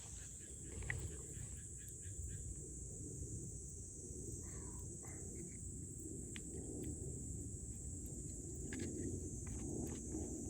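Wood campfire crackling, with scattered sharp pops and ticks over a low steady rumble and a steady high hiss.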